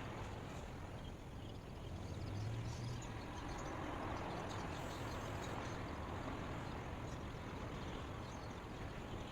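Steady rushing background noise with a low rumble underneath that swells briefly about two and a half seconds in.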